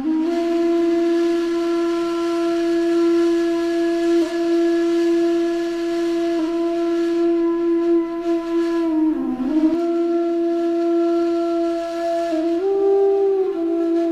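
Music: a breathy wind-instrument melody holding long, steady notes, with a brief dip in pitch about nine seconds in and a step up to a higher note near the end.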